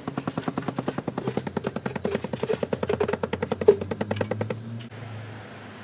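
Power hammer chipping at concrete, a rapid even run of about ten blows a second that stops about four and a half seconds in, over a steady low hum.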